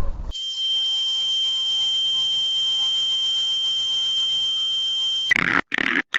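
A sound-effect beep: one steady, high-pitched electronic tone held for about five seconds that cuts off suddenly. Short choppy bursts follow near the end.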